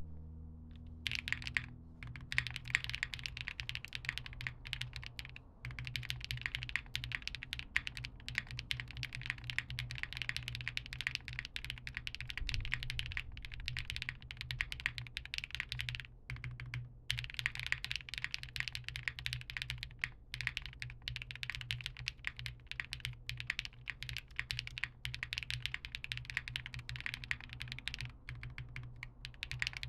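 Continuous typing on a Space65 mechanical keyboard with KFA Pink Robin switches, an FR4 plate with plate foam and PBTfans Resonance PBT keycaps: a steady stream of key clacks starting about a second in, broken by a few short pauses. It is recorded through a phone microphone, with a low steady hum underneath.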